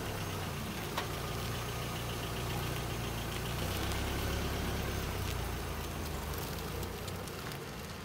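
A motor vehicle's engine running low and steady on the street, growing louder through the middle and easing off toward the end, with a single short click about a second in.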